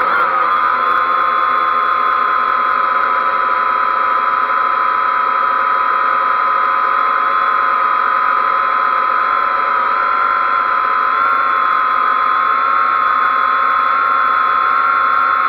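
XK X380 quadcopter's motors and propellers whining steadily in flight. The pitch is high and holds nearly level, wavering slightly.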